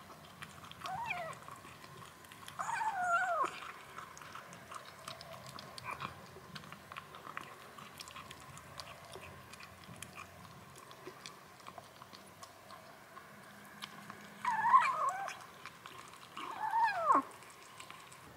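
Kittens meowing four times, each call sliding down in pitch, twice near the start and twice near the end. Soft chewing clicks come from kittens eating wet food from a plastic bowl.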